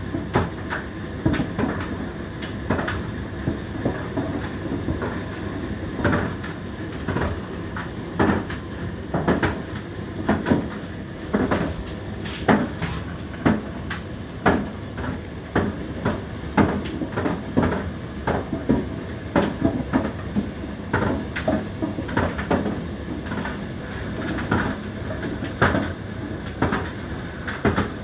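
Indesit IDC8T3 condenser tumble dryer running, a steady drum-and-fan hum under frequent irregular knocks and clunks as the load tumbles in the turning drum.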